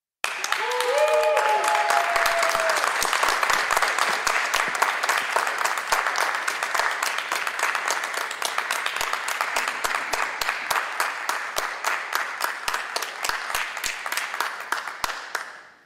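Audience applauding a graduate's name, with a few short cheering voices near the start. The applause cuts off suddenly at the end.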